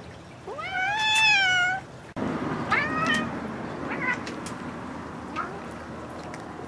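Bengal cat meowing: one long meow that rises then falls, followed by a few shorter meows, with faint light taps in between.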